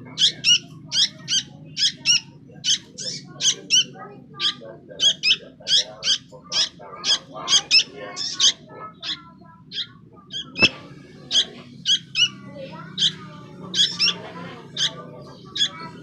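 Young sooty-headed bulbuls calling: a fast, sharp run of short, high chirps, about two to three a second. There is one sharp click about ten and a half seconds in.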